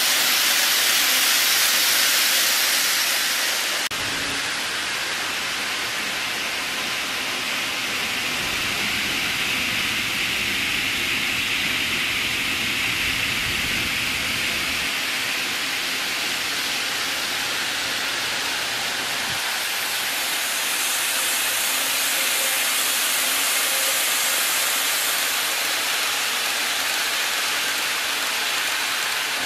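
Model trains running on layout track: a steady, hiss-like running noise that changes abruptly in tone about four seconds in and again around twenty seconds.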